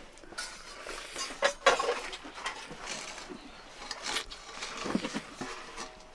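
Eating rice by hand from a steel plate: fingers scraping and gathering rice against the metal, with several light clinks on the plate, and chewing as handfuls go into the mouth.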